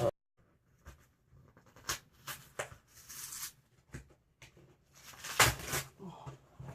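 Packaging being handled and pulled at while being opened: scattered crinkles and taps, a short tearing scrape about three seconds in, and a louder burst of rustling about five and a half seconds in.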